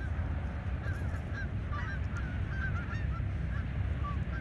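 A flock of geese honking, many short calls one after another, over a heavy rumble of wind on the microphone.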